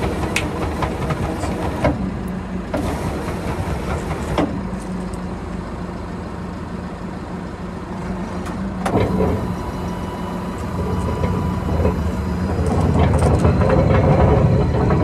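Tractor engine running steadily while powering a Kongskilde VM45-3B vertical feed mixer wagon through its PTO shaft, a constant mechanical drone. A few sharp metallic knocks come through, and the drone grows louder near the end.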